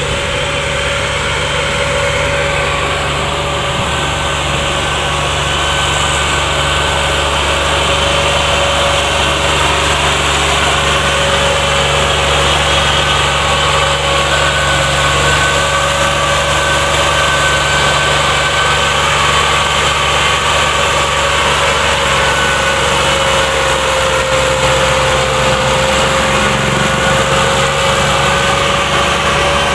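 Massey Ferguson 240 tractor's three-cylinder diesel engine running steadily under the heavy load of an overloaded sugarcane trolley, with a held whine over the engine drone. It grows louder over the first several seconds as the tractor comes closer, then stays level.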